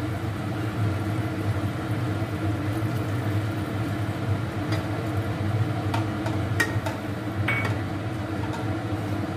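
A steady low kitchen hum runs under the sound of a curry cooking in a non-stick frying pan. In the second half a few light clicks and clinks ring out as the spatula and a glass touch the pan.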